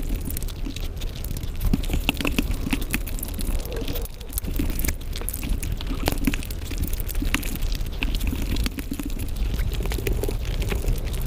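Close-miked mouth sounds of chewing, together with the sticky squish of fingers mixing and pressing biryani rice on a plate. Many small sharp clicks and smacks are scattered throughout.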